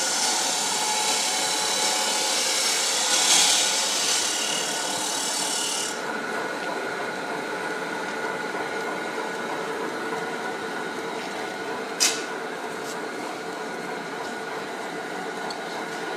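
Four-head steel-wire kitchen scourer making machine running, a steady rasping hiss over a mechanical hum. The hiss drops off abruptly about six seconds in, and a single sharp click sounds about twelve seconds in.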